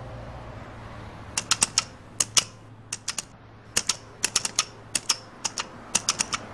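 Pedestrian crosswalk push button pressed over and over: sharp clicks in quick, irregular clusters, starting about a second and a half in.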